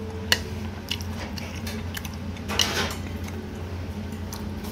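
Close-up eating sounds: chewing a mouthful of fried sweet-and-sour pork, with scattered clicks of tableware, a sharp one about a third of a second in and a brief clatter past the middle, over a steady low room hum.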